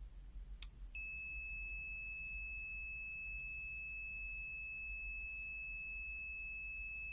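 HABOTEST HT122A pen-type digital multimeter's buzzer giving one continuous high-pitched beep, starting about a second in just after a light click of the probes. The beep means the resistor reads under the meter's 50-ohm continuity threshold.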